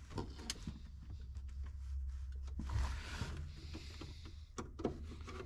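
A hand screwdriver backing out Phillips-head screws from a metal dashboard: faint scraping and turning noise, with a few sharp clicks near the start and again late on.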